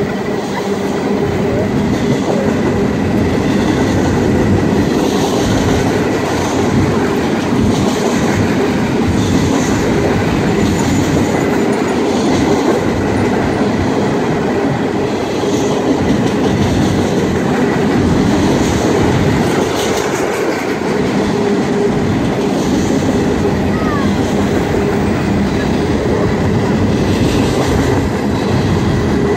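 Empty BNSF freight train of double-stack container well cars rolling past at close range: a loud, steady rumble and rattle of wheels on rails, with regular clacking from the wheels about once a second.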